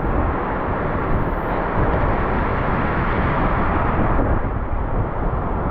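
Heavy surf rushing in on the shore, a loud steady wash of waves that swells slightly midway.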